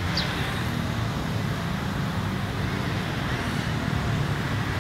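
Steady low rumble of outdoor background noise, typical of road traffic, with one short high chirp just after the start.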